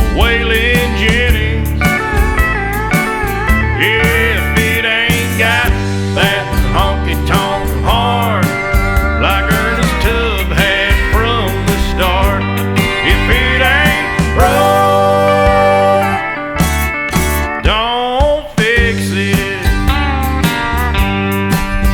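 Country music playing.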